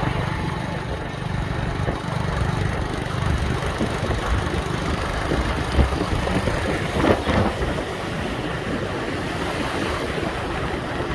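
Wind rumbling on the microphone over a steady rushing noise, with a couple of brief louder gusts midway.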